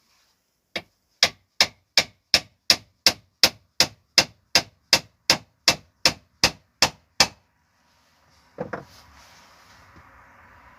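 Hammer striking a nail: about eighteen evenly paced blows, a little under three a second, then a single knock and a rising noise near the end.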